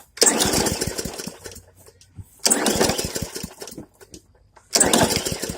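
Briggs & Stratton 300E-series 125 cc lawn mower engine pull-started three times. Each pull cranks it over for a second or so, loudest at the start of the pull and fading, and it does not catch: the primed engine won't start.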